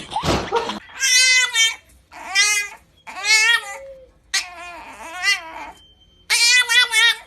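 A cat yowling in a string of drawn-out calls, about one a second, each with a wobbling pitch. A short noisy burst comes just before the first call.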